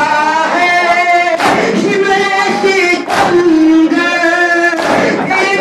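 A noha, a sung Shia lament, carried by one lead voice in long held phrases, with the mourners' matam, hands striking chests in unison, cutting in as a loud slap about every 1.7 seconds, three times.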